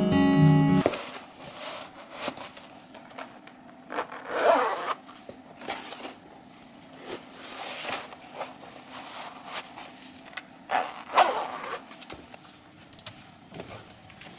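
Guitar background music cuts off about a second in. It is followed by quiet handling noises: several short scraping swishes, the loudest about four and eleven seconds in.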